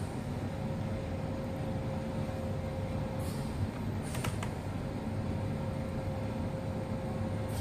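Steady low background hum, with a couple of small clicks about four seconds in.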